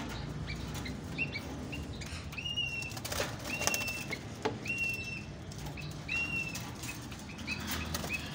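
Doves flapping their wings inside a wire cage, with repeated short high bird chirps, each rising then holding level, and a few sharp clicks of the cage.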